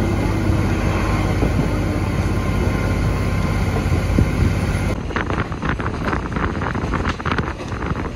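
Cabin sound of a KiHa 40 diesel railcar under way: the diesel engine's steady drone and running noise. About five seconds in it changes abruptly to gusty wind buffeting the microphone through an open window.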